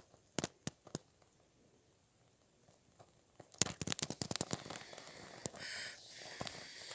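Dry twigs and kindling crackling and snapping: a few separate snaps in the first second, then from about halfway a dense run of crackles.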